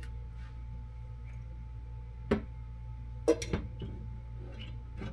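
Metal parts of a skid steer's pedal control lever linkage clinking as they are handled and fitted: one sharp clink about two seconds in, then a quick cluster of clinks about a second later, over a steady low hum.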